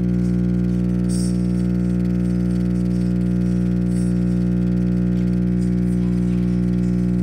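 Vintage RCA Victor portable tube record player's amplifier humming loudly and steadily, a mains hum with many overtones, with a couple of faint clicks as the tone knobs are turned.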